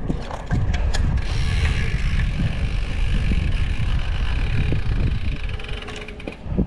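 Wind buffeting the microphone while riding, a loud low rumble, with a few clicks about half a second to a second in; it eases off near the end.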